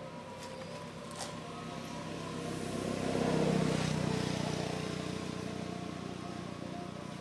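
A motor vehicle passing by, growing louder to a peak about three and a half seconds in, then slowly fading.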